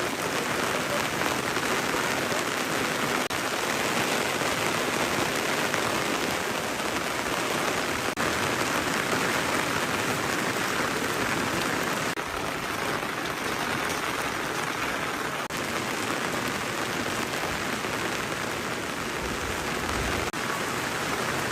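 Steady rain falling, a constant even hiss of rainfall.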